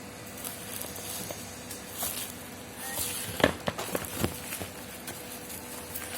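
Rustling and handling of a package being unboxed, with a few sharp knocks, the loudest about three and a half seconds in.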